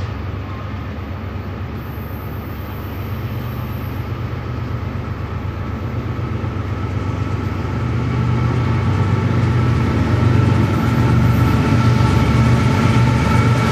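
Approaching diesel train, its low engine rumble growing steadily louder as it nears, with steady high-pitched tones above it that strengthen near the end.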